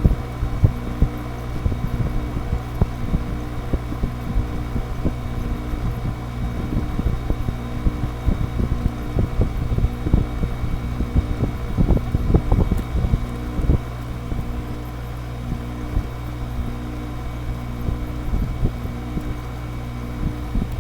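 GE 5,050 BTU R-22 window air conditioner running steadily after a cold start in 2-degree weather: a constant compressor and fan hum with a faint regular pulsing. Uneven low rumbling bumps come and go over it, heaviest around the middle.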